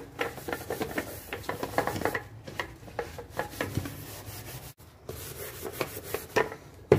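Steel wool scrubbing a metal couscous steamer pot in quick, irregular rubbing strokes, working off stains loosened by a homemade cleaning mixture. A sharp knock sounds near the end.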